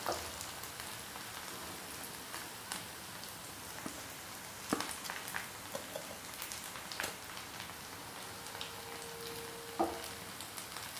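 Hot oil sizzling steadily in a frying pan of methi vadas, with a few sharp clicks of a steel slotted spoon against the pan and the steel plate as the vadas are lifted out.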